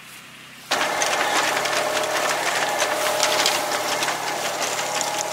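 Reaper-binder at work, its cutter bar and mechanism clattering rapidly and evenly over a steadily running engine. It starts abruptly under a second in.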